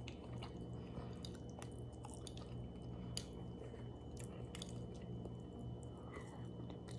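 Quiet chewing of food close to the microphone, with small wet mouth clicks and smacks scattered through, over a steady low hum.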